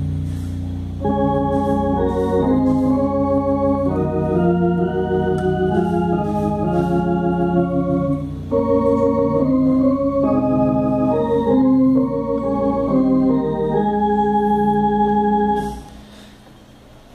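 Tokai MD 10 electronic drawbar organ playing slow sustained chords on a basic drawbar registration with vibrato on, over a held low bass note. The chords change every second or so, pause briefly about halfway through, and the playing stops shortly before the end.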